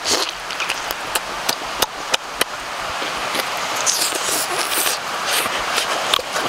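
A person eating cooked snail meat: wet chewing and lip-smacking with many sharp, irregular mouth clicks, and a brighter hissing stretch about four seconds in.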